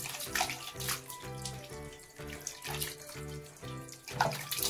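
Water poured by hand over a wet cat, splashing in short irregular bursts onto its fur and the tiled floor.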